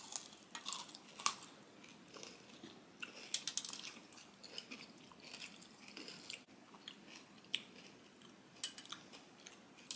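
Chewing and biting into crisp-coated fried-chicken-style ice cream bars: irregular, crisp crunches and crackles, the sharpest about a second in.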